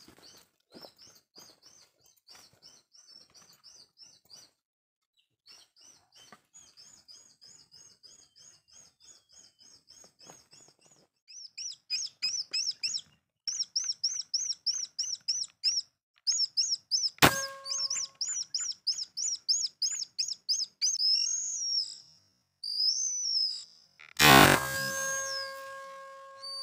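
Birds chirping in fast, repeated series throughout, louder from about halfway in. About two-thirds of the way in comes a single sharp crack, the shot of a PCP air rifle. Near the end a loud whoosh and a held chime are laid over the birds.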